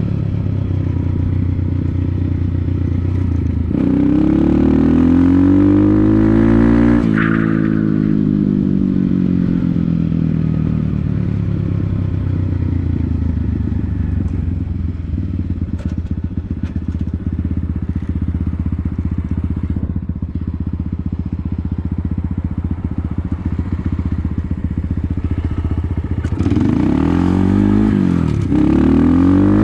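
Motorcycle engine on the move: the revs climb about four seconds in and drop sharply at a gear change a few seconds later, then fall away to a steady low drone. Near the end it pulls hard again, with revs rising, dropping at another shift and rising once more.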